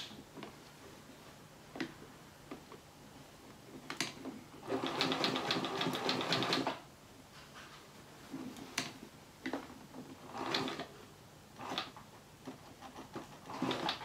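Vintage domestic sewing machine machine-quilting through the layers of a quilt. It runs in one steady burst of stitching for about two seconds near the middle, with a few single clicks and short stitch runs around it as the quilt is moved under the needle.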